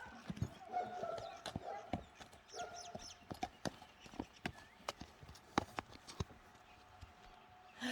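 Horse hooves clopping on hard ground: a string of uneven knocks that thin out and stop about six seconds in.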